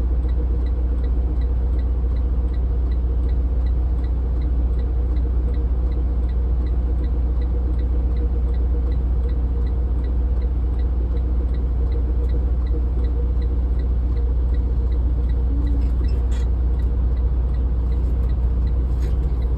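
Tractor-trailer's diesel engine running with a steady low drone, heard from inside the cab, with the turn signal ticking about two or three times a second.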